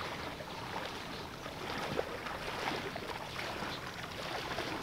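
Water sloshing and splashing around the legs of someone wading through knee-deep shallows, irregular and steady in level, over a constant outdoor hiss.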